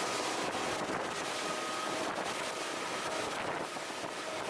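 Suzuki outboard motor of a small center-console boat running under way: a faint steady whine under a steady rush of wind on the microphone.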